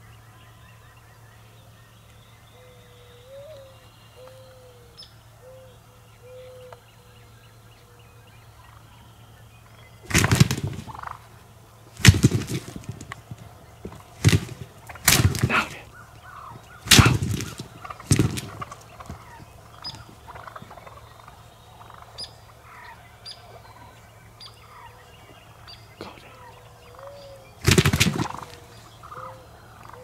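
Wild turkey toms gobbling: about seven loud gobbles from a third of the way in, several coming a second or two apart, with one more near the end.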